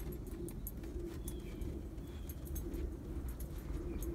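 Husky's paws crunching lightly in snow as it walks, heard as a scatter of short high clicks, with faint short bird chirps repeating about once a second over a steady low rumble.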